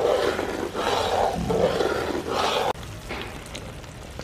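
Dark sugar syrup boiling and bubbling in a wok as it cooks down into caramel colouring. It drops suddenly to a quieter bubbling about two and a half seconds in.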